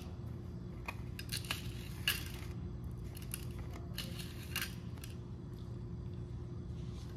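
Scattered small clicks and rustles of a plastic candy-kit tray and tiny candy pieces being handled on a stone countertop, over a steady low hum.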